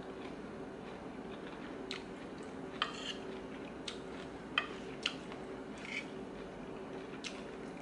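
A person eating a spicy squid and green mango salad: chewing with crisp crunches, and a spoon clicking and scraping on the plate. There are about six short sharp clicks, spread irregularly, over a steady low hum.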